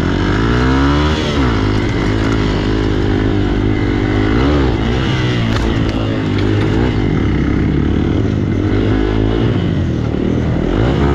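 Hero XPulse dirt bike's single-cylinder engine revving hard under load, its pitch climbing and dropping again and again as the throttle is worked, with a sharp climb about a second in and another about four seconds later.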